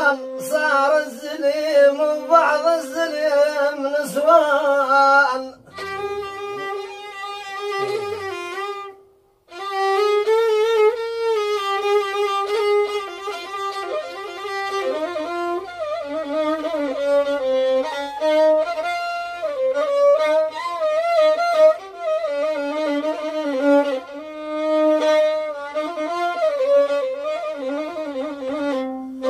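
Violin playing a winding, ornamented melody, with a brief break about nine seconds in.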